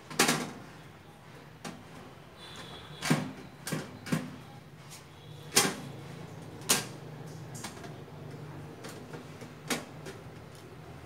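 Uncooked prawn crackers being laid one by one onto a metal oven tray: a string of sharp, irregular clacks and taps, about seven in all, the loudest just after the start.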